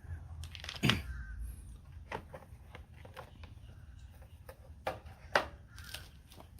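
A run of irregular clicks and knocks from hard objects being handled, the loudest about a second in and twice more a little before the end.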